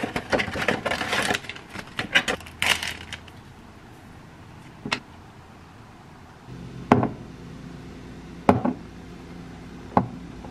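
Rustling and clicking of a small cardboard box being handled and opened, then three sharp knocks about a second and a half apart as a mug and small glass bottles are set down on a stone countertop. A low steady hum starts about halfway through.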